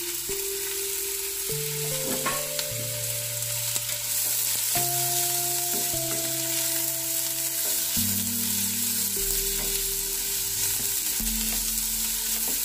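Carrot and cucumber sticks sizzling in hot ghee in a nonstick kadai, a steady crackling hiss, stirred with a spatula near the end. Soft background music with slow held notes plays underneath.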